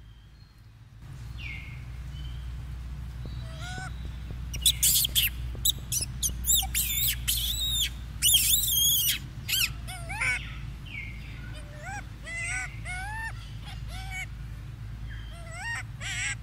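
Macaque calling: a run of short, high, arching squeals, loudest and densest between about four and nine seconds in, then sparser. A low rumble of handling or wind on the microphone runs underneath.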